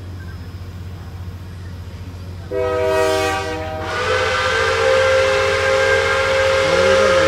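Steam locomotive whistle sounding: a short blast about two and a half seconds in, then a longer, hissier blast starting about four seconds in.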